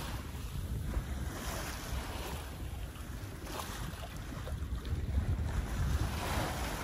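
Wind rumbling on the microphone over the wash of water along the hull of a sailboat under sail, swelling and easing a little.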